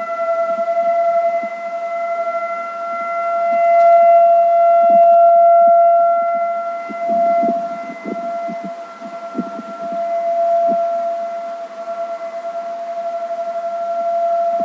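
Whelen 1,600-watt electronic siren with a rotating speaker array sounding a steady, unwavering tone, its loudness slowly swelling and fading as the speaker head turns.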